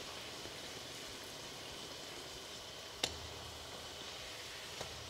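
Puffed puri deep-frying in hot oil in a steel kadhai: a steady, faint sizzle, with one sharp clink of the slotted steel spatula against the pan about three seconds in as the puri is turned.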